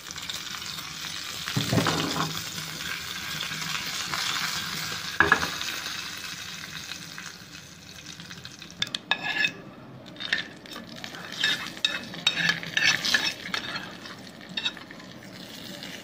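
Whole spices, garlic and dried red chillies sizzling in hot oil in a small frying pan as a tadka, with two knocks in the first few seconds. After about eight seconds the sizzle gives way to a run of sharp spoon clinks and scrapes.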